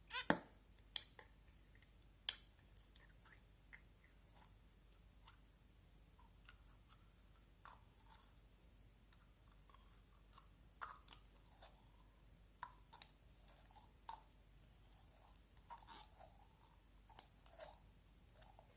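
Slime being squished and stretched by hand: scattered soft, sticky clicks and small pops, the loudest few in the first couple of seconds.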